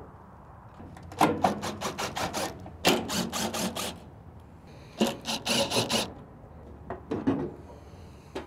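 Hand-tool work on a pellet grill's metal hopper as its screws are undone and the hopper is worked free: three bursts of rapid clicking, about a second each, and a shorter one near the end.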